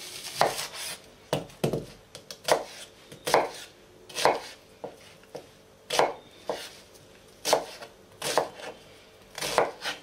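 Large kitchen knife chopping a peeled onion into big chunks on a plastic cutting board: a sharp knock of the blade on the board with each cut, in an unhurried, uneven rhythm of about one to two strokes a second.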